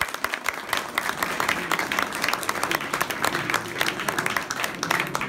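A small standing crowd applauding: many hands clapping densely and at an even level.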